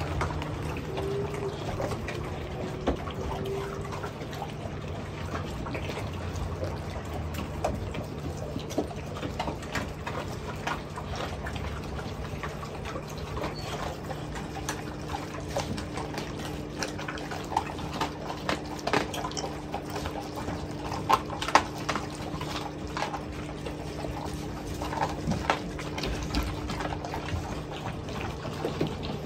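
Big mastiff dogs moving about on a hard floor: scattered short clicks and taps over a steady low hum, the taps coming thicker in the second half.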